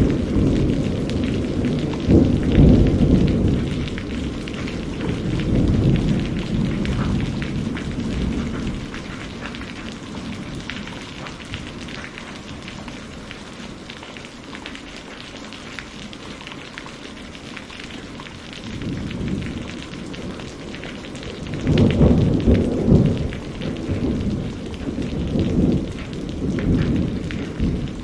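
Thunderstorm: steady heavy rain with rolling thunder, a long rumble in the first several seconds, a fainter one past the middle, and a loud peal with rumbles near the end.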